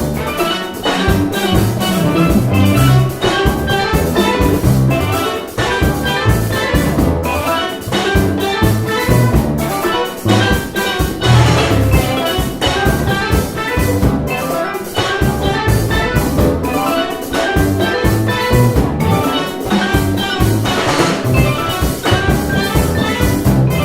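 Live percussion ensemble playing a fast jazz-fusion tune: steel pan carrying the melody over drum kit.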